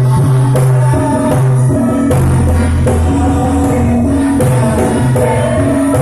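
Loud music with a steady beat, a bass line and a jingling tambourine-like percussion.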